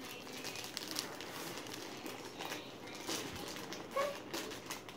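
Plastic packaging and tissue paper crinkling and rustling as a child's hands grab and pull at a wrapped pack of training pants, a run of small crackles. There is a brief high squeak about four seconds in.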